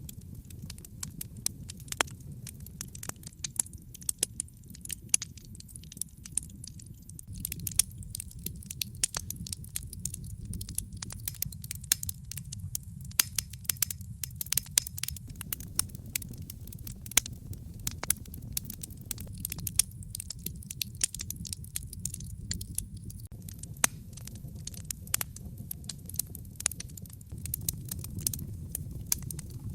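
Wood fire crackling: frequent irregular sharp pops and snaps over a steady low rumble of the flames.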